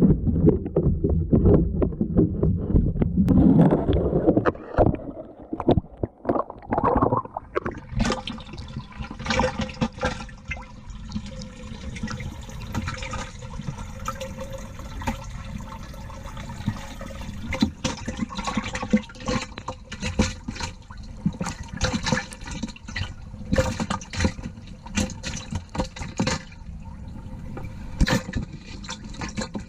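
Water churning and sloshing for the first few seconds, then underwater ambience: a continual scatter of sharp crackling clicks over a low hum.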